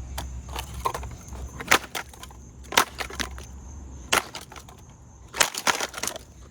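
A series of sharp, hard blows, something wooden striking a hard object about five times, roughly a second apart, with a quick double strike near the end.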